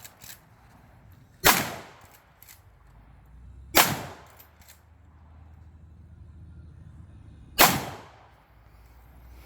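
Winchester Model 94 lever-action rifle in .30-30 firing three shots, about two and a half seconds and then about four seconds apart, each a sharp crack with a short fading tail. Faint clicks come between the shots.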